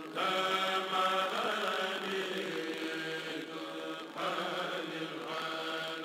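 A Mouride kourel, a group of men, chanting religious khassaid verses a cappella into microphones, in long held lines with short breaks between them.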